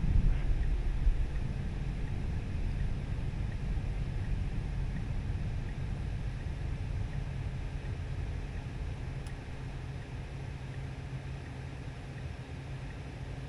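Tesla electric car's tyre and road noise while driving: a steady low rumble with no engine note, slowly easing in loudness.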